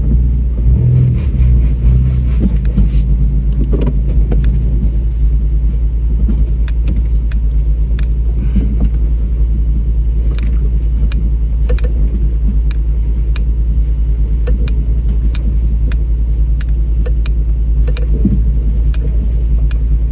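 Off-road vehicle engine running low and steady as the vehicle crawls over rough ground, briefly louder about a second in. Frequent sharp rattles and knocks of the body and loose contents come through as it bounces.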